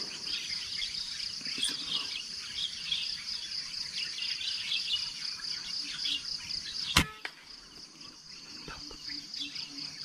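A steady insect chorus with birds chirping, broken by a single sharp air rifle shot about seven seconds in; the chirping thins out after the shot.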